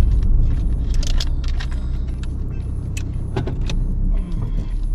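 Car cabin rumble as the car drives, with a dozen or so light, sharp clicks and rattles scattered through it.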